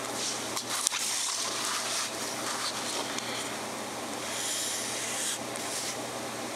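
The 14-karat gold nib of a Mabie Todd Swan 3220 fountain pen swishes across Rhodia paper in a series of pen strokes. A sharp click comes about a second in, over a faint steady hum.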